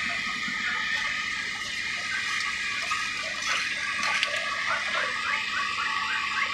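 Steady rushing of a flowing river. Near the end a run of short rising chirps, about two a second, comes over it.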